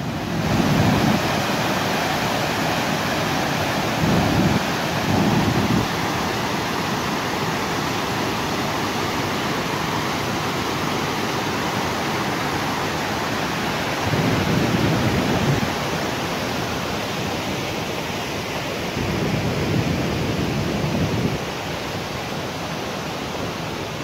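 Waterfall rushing steadily, a constant loud roar of falling water, with four deeper swells of noise swelling and fading over it.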